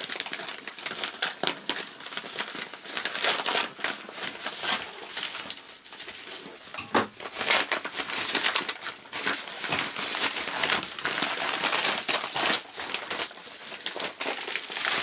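Plastic packaging crinkling and rustling as it is handled: a white plastic mailing bag being opened and, near the end, the clear plastic wrap around the product. It is a dense, irregular run of crackles.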